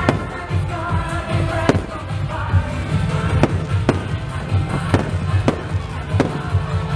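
Aerial fireworks shells bursting in a string of sharp bangs, about one or two a second, over music with a pulsing low beat.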